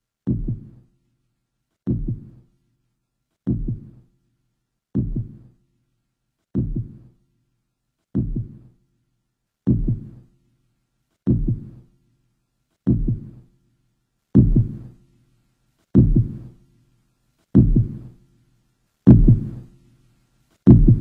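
Heartbeat sound effect: a slow double thump about every second and a half, growing steadily louder.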